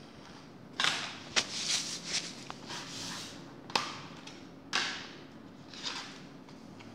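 A clear plastic case is handled and opened: two sharp plastic clicks, with bursts of scraping and rustling from the frosted plastic sleeves inside.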